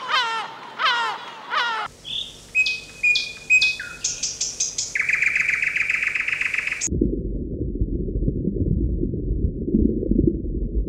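A gull giving a few repeated harsh calls, followed by small birds chirping and a steady high trill. About seven seconds in, these give way to a steady low underwater rumble.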